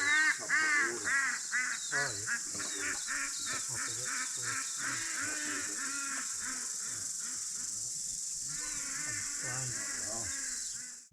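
Birds calling over and over in quick, short calls, over a steady high-pitched insect drone.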